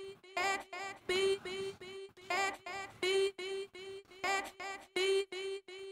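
Eurorack modular synthesizer playing a sequenced pattern, about three notes a second. A repeating lower note sits under brighter notes that waver in pitch.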